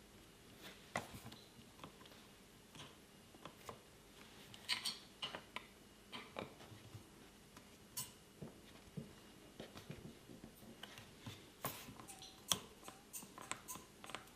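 Faint, scattered small clicks and taps of hands working on a motorcycle's front brake lever, fitting a new brake light switch.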